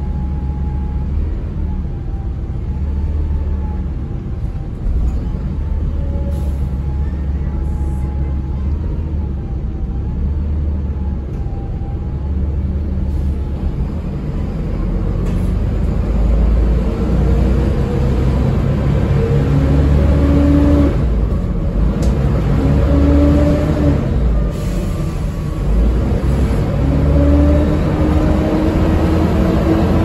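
Volvo B7TL double-decker bus's six-cylinder diesel engine heard from inside the passenger saloon: running steadily at first, then pulling away about halfway through and accelerating, its pitch rising and dropping back several times as the gearbox changes up.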